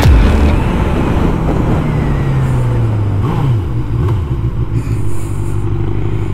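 Honda CBF600's inline four-cylinder engine heard on board with wind noise as the bike slows. The engine note falls over the first few seconds, changes pitch briefly about three seconds in, then settles to a steady low note.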